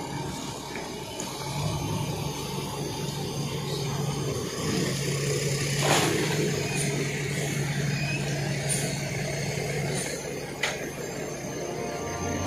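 Mercedes-Benz OH 1525 bus's diesel engine idling steadily, with a short sharp hiss of air about halfway through.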